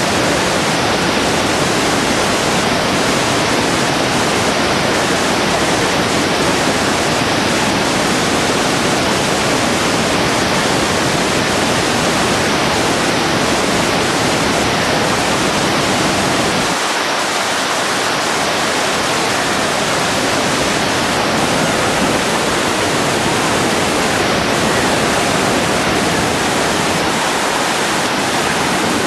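Loud, steady rush of river rapids: whitewater tumbling and cascading over rocks. The deep rumble underneath thins a little about halfway through.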